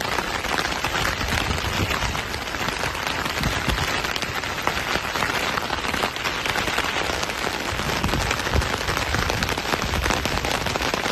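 Heavy rain pouring down, a dense steady patter with a low rumble underneath.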